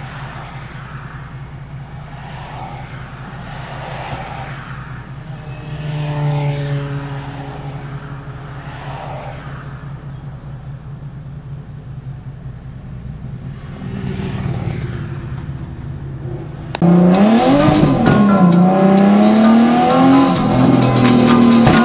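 Nissan 370Z's 3.7-litre VQ37 V6 with a Tomei exhaust idling steadily at a standstill, with other traffic around it. About 17 seconds in it cuts suddenly to the same engine much louder, revving up and down under hard driving.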